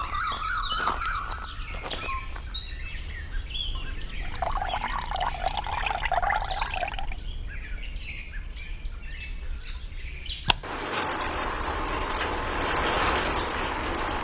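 Small birds chirping. About ten seconds in, a sharp click, and then a steady hiss takes over.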